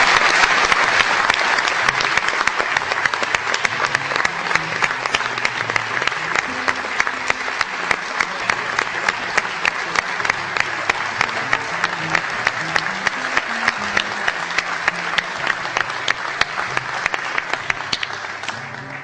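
Audience applauding, loudest at the start and dying away near the end, with faint music playing underneath.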